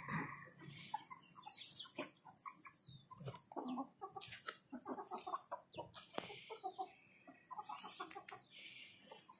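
Young hens clucking softly in runs of short, low notes, with a few sharp clicks mixed in.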